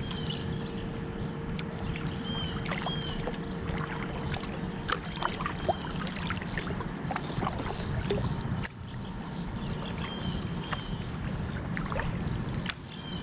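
Kayak paddling: a double-bladed paddle dipping and pulling through calm water, with dripping from the blades and scattered light clicks and knocks.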